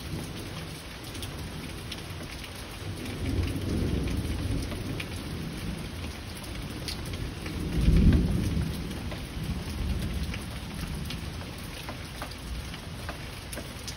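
Heavy rain falling steadily, with scattered sharp drop ticks, under gentle rolling thunder: a low rumble swells about three seconds in, and a louder one builds about eight seconds in and rolls away over the following seconds.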